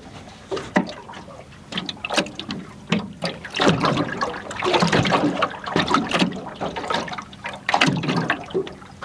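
Water splashing and sloshing at the side of a small boat in uneven, repeated splashes, while a hooked squid is worked to the surface.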